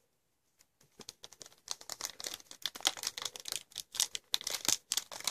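Foil wrapper of a Yu-Gi-Oh booster pack crinkling and crackling as it is handled, starting about a second in with a dense run of irregular crackles.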